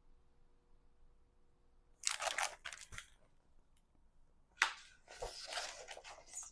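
Paper rustling and crinkling as a picture-book page is handled and turned: a short burst about two seconds in, a click, then more rustling near the end.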